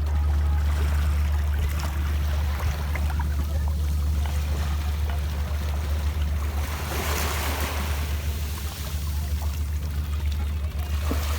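A small boat's motor running steadily under way, a constant low hum, with water rushing and splashing against the hull.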